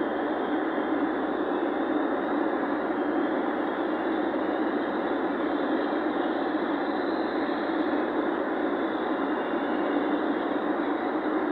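Steady noise of a vehicle driving on the road, even throughout with no distinct events.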